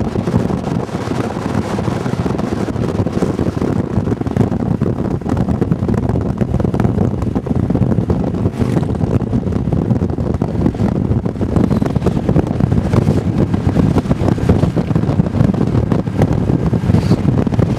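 Steady rush of wind over the microphone of a camera riding on a moving motorcycle, with the motorcycle's engine and road noise underneath.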